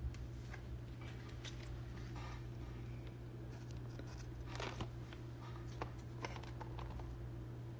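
Hands handling a rigid clear plastic trading-card holder: scattered light clicks and brief plastic rustles, over a steady low hum.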